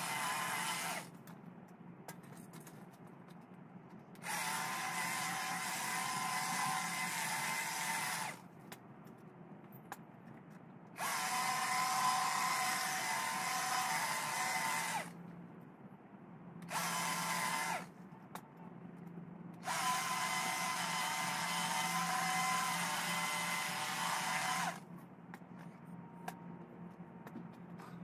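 Stihl HLA 86 battery long-reach hedge trimmer run in bursts of about one to five seconds, its electric motor whining steadily while on and stopping between cuts, about five times. A faint low hum continues between the bursts.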